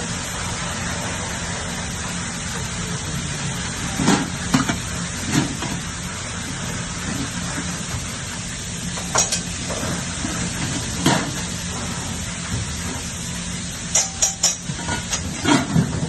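Food sizzling in a frying pan, with a cooking utensil knocking and scraping against the pan every few seconds, most often near the end.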